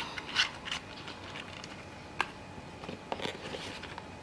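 Hands handling the box contents, a charging cable and packaging: a few short sharp clicks and scratchy rustles, with a cluster about three seconds in.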